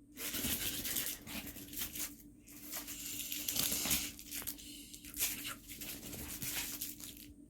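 A dog scratching and tearing at a toy, making irregular scratchy rustling in short bursts with brief pauses between.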